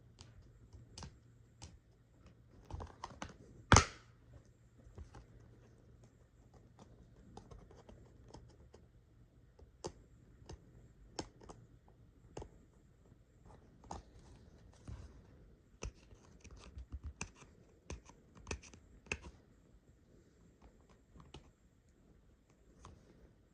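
Hands handling a Blu-ray case and its packaging: scattered clicks, taps and scratches, with one loud sharp knock about four seconds in and a busier run of clicks later on.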